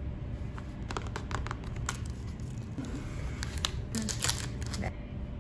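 Plastic snack wrapper crinkling as a packaged chocolate snack is handled: scattered light crackles, bunched about a second in and again near four seconds.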